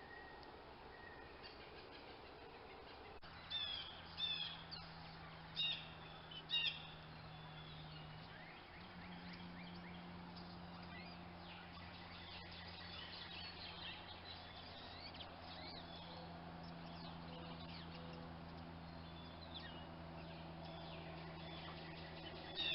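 Wild birds chirping: a few loud, bright chirps between about three and seven seconds in, then scattered softer calls. A steady low hum starts about three seconds in and runs beneath them.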